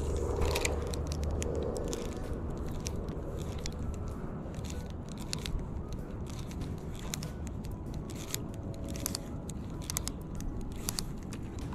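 Spinning reel being cranked on a lure retrieve, giving a run of small, irregular clicks and ticks.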